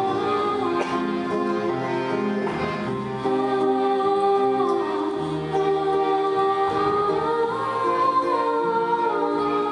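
Live band music led by an accordion, with a voice singing a melody over it.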